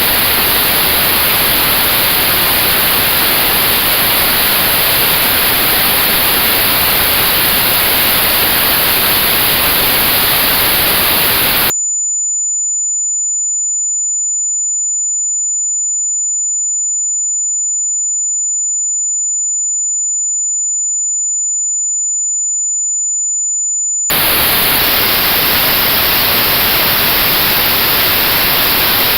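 Notched white noise for tinnitus testing: steady hiss with a band of high frequencies cut out. About 12 seconds in it switches abruptly to a single steady high-pitched pure tone sitting in that cut-out band, the real tone matched to the notch. After about 12 seconds the notched hiss comes back.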